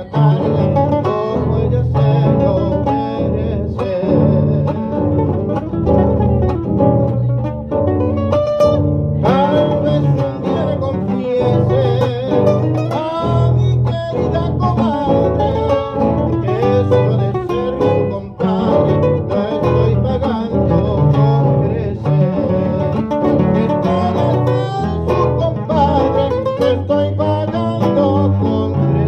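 Two acoustic guitars playing a tonada cuyana, an Argentine folk song from the Cuyo region, with a man singing over the strummed and plucked accompaniment.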